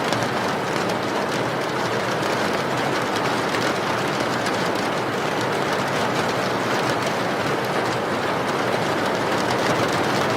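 Steady heavy rain: a constant even hiss with fine patter of drops, unchanging in level.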